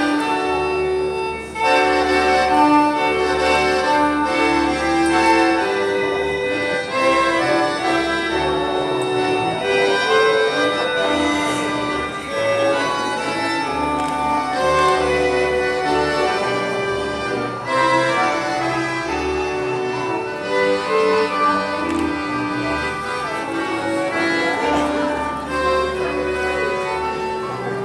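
Polish folk dance music: an instrumental tune of held melody notes over a steady bass.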